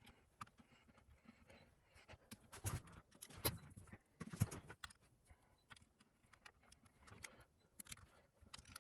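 Faint, scattered small clicks and light taps of an Allen key turning the screws of a RAM water block. A few louder knocks come between about two and a half and four and a half seconds in.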